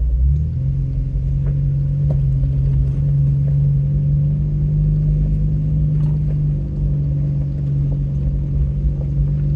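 Off-road truck's engine droning steadily, heard from inside the cab as it drives a rough dirt trail; the engine note steps up in pitch just after the start, with a few faint knocks from the body over the bumps.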